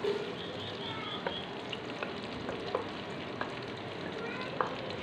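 Sliced onions sizzling steadily in hot ghee in a metal pot, with a few light knocks of a wooden spoon against the pot as they are stirred.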